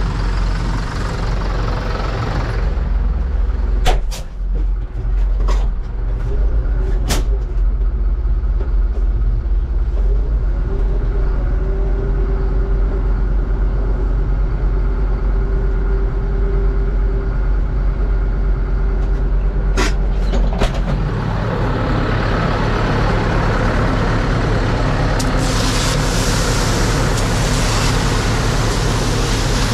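Tractor diesel engine running steadily, with several sharp clicks. In the last few seconds, a loud hiss of granular fertilizer pouring from a big bag into a spreader hopper rises over the engine.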